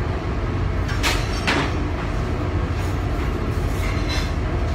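Steady low rumble of a busy commercial galley kitchen, with sharp clinks of dishware on the steel counter about a second in and again half a second later.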